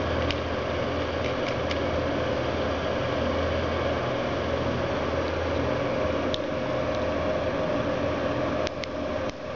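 Steady mechanical hum and hiss, like a fan or air conditioner running, with a few light clicks scattered through; the hum dips briefly near the end.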